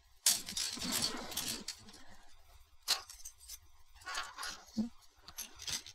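Plastic model-kit runners (sprues) clattering against each other as one is handled and laid onto a stack of runners: a sudden rattle about a second and a half long, then a few light plastic clicks.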